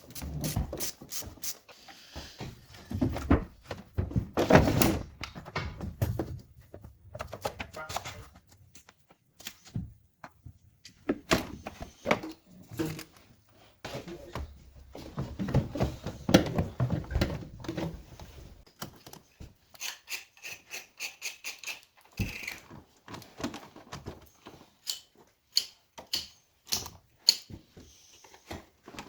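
Hand tools clicking and knocking on metal during engine installation work, in bursts of clatter, with a run of quick even ticks about twenty seconds in.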